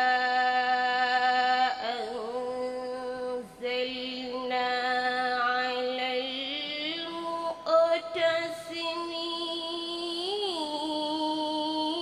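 A girl reciting the Quran in a melodic tajweed style, holding long drawn-out notes with small wavering turns. She breaks briefly twice near the start, then moves to a higher pitch in the second half.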